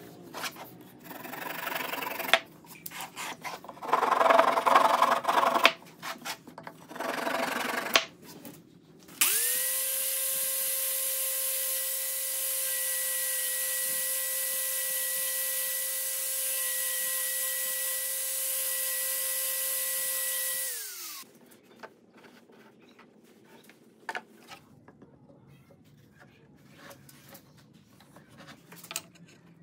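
Handheld electric sander with a foam disc pad running steadily with a high whine for about twelve seconds, then winding down in pitch and stopping. Before it come several seconds of irregular rasping strokes on wood, and after it only faint handling knocks.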